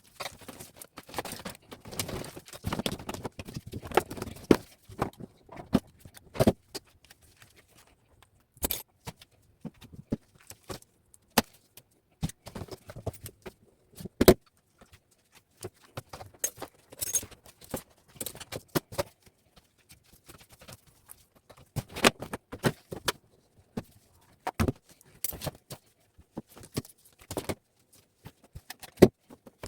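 Irregular clicks, snips and small metallic clinks of copper wire being cut and stripped by hand, with a stretch of rustling handling in the first few seconds.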